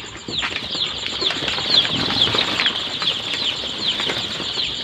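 A brood of five-day-old chicks peeping: many short, high, falling peeps, several a second and overlapping. A plastic brooder cover rustles as it is lifted, beginning about a third of a second in.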